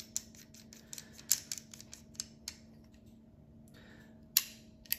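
Small parts of an SSP18 airsoft pistol being worked by hand, giving small sharp clicks. A quick run of clicks comes in the first two and a half seconds, then two louder single clicks near the end.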